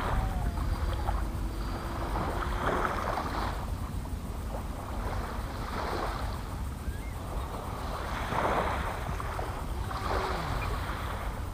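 Small waves washing onto the beach every few seconds, with wind rumbling on the microphone.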